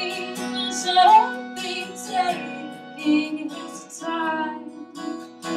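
A song played live on strummed acoustic guitar, with a woman's sung melody and a woodwind line between the verses.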